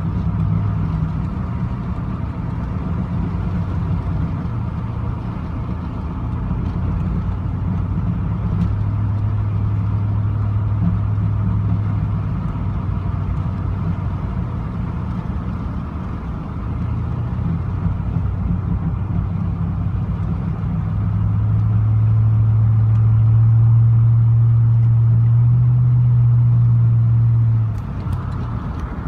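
2000 Z71 pickup's 5.3 V8 and drivetrain running with a loud, low hum that shifts in pitch. It grows louder for several seconds late on, then drops suddenly near the end. The transmission is ruined after two hours of driving in 4Lo and has no reverse and no third gear.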